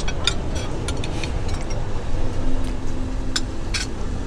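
Metal forks and spoons clinking lightly against ceramic plates, a few separate clinks, over a steady low background rumble.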